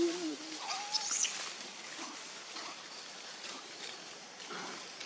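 Two brief animal calls in the first second or so. The first is low and bends in pitch; the second is higher, with a quick dip and a short high squeak right after it. Steady background noise runs under them.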